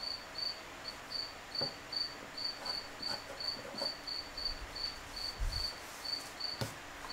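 A cricket chirping steadily: short, high chirps at one pitch, about two to three a second. A few faint knocks of wood being handled on a bench come in between.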